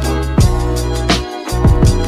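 Background music with a steady drum beat and bass, its drum hits dropping in pitch.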